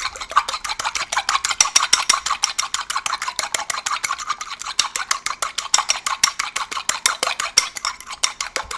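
A fork beating an egg wash, one egg with a splash of cold water, in a small bowl: quick, even strokes of the fork scraping and clinking against the bowl.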